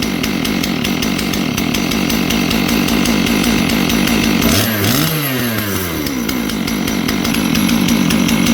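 Clone 661 kit chainsaw's two-stroke engine running at high revs with no bar and chain fitted. About halfway through the revs dip briefly and climb back, and near the end they start to fall. The owner calls the carburetor finicky and still being tuned.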